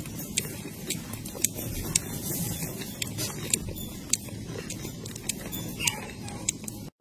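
Newborn puppies nursing: irregular small clicks and smacks several times a second over a low rumble, with a faint short whimper near the end.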